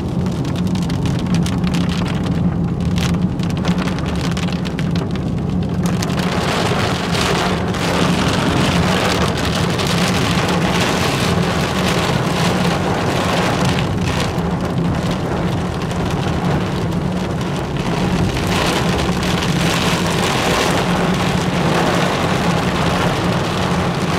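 Heavy rain beating on a moving car's windshield and body, heard from inside the car, the hiss growing thicker and louder about six seconds in as the car drives into the heavier rain. A steady low rumble of the car runs underneath.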